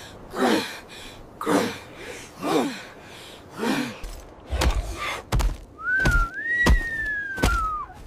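A group of early humans grunting in rhythm, about once a second, while beating their chests. Then come several heavy thuds with a low rumble, and over them a single long, high cry from a giant flightless bird that rises, holds, and slowly falls away.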